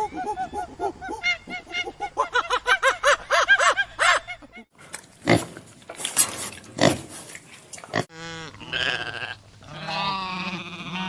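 Farm animal calls one after another. First come many rapid, high peeping chirps, then a few short grunts, and from about eight seconds in a long wavering bleat.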